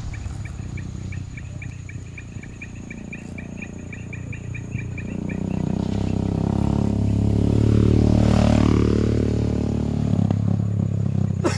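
A motor vehicle drives past, its engine note swelling to a peak about eight seconds in and then fading. For the first four seconds or so a rapid series of high ticks, about six a second, runs underneath.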